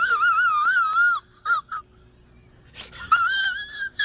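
A high whistle-like call that warbles up and down for about a second, then a few short chirps, then a second, steadier whistle near the end.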